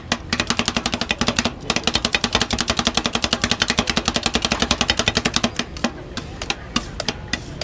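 Metal spatulas chopping food rapidly against a flat metal plate, about ten sharp strikes a second over a steady ringing tone from the plate. Near the end the strokes slow to scattered, uneven taps.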